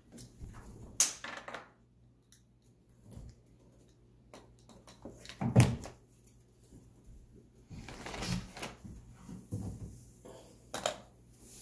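Handling noise: scattered clicks and taps of small objects picked up and set down on a wooden table, with one louder knock about halfway through and a cluster of taps later on.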